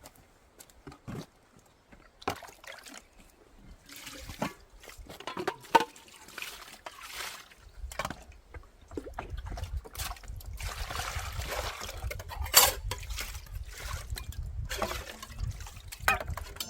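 Water pouring and splashing, with scattered knocks and clatter of vessels being handled; a steadier flow comes in about halfway through.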